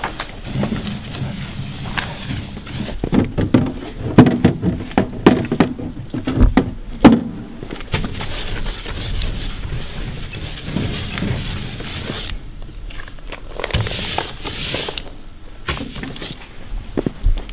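Posters being pasted onto a street hoarding: a paste brush swishing over wet paper, paper rustling, and scattered knocks and footsteps. The knocks cluster in the first half, and the brush swishes come in spells later.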